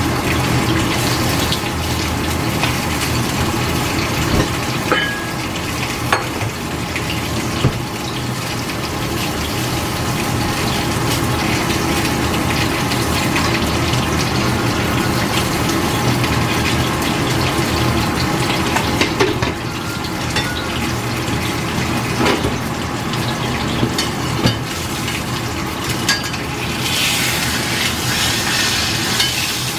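A pot of water bubbling steadily on the stove, a continuous hiss with a low hum underneath and a few small clicks. Near the end a metal ladle is dipped and stirred in the pot.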